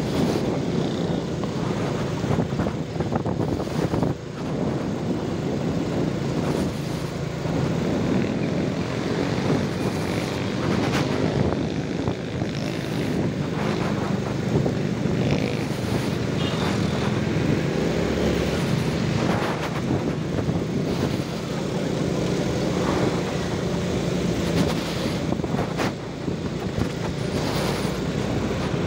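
Steady engine drone and road noise from riding a motorbike through town traffic, with other motorbikes passing.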